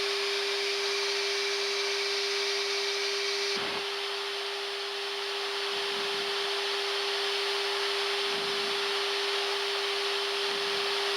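Boeing 747-400 flight deck noise in flight: a steady rush of air with a constant hum underneath. About three and a half seconds in there is a brief low thump and the hiss changes.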